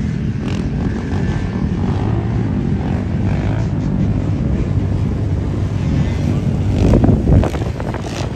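Boat engine running steadily under way, with wind buffeting the microphone; the sound briefly swells about seven seconds in.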